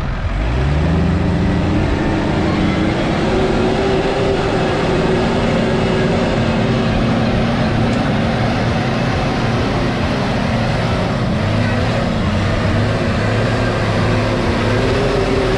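Tractor engine revving up sharply in the first second, then held at high revs with the pitch wavering a little, and dropping away right at the end.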